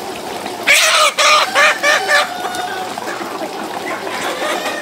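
A large flock of chickens clucking and calling together. Just under a second in, one bird gives a loud call in several pulses lasting about a second and a half.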